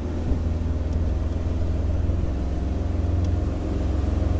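Engine of a 1985 Sea Sprite motorboat running under way, a steady low hum given a little more throttle and growing slightly louder near the end.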